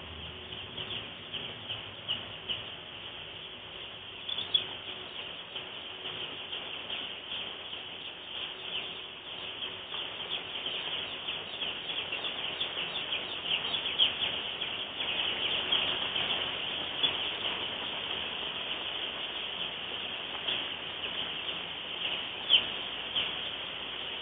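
A large flock of two-day-old Ross 308 broiler chicks peeping: many short, high chirps overlapping into a constant chatter that grows busier and louder around the middle.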